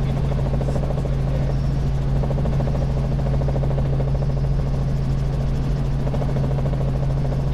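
Robinson R44 Raven I helicopter in flight: the steady drone of its rotors and Lycoming six-cylinder piston engine, with a strong constant low hum.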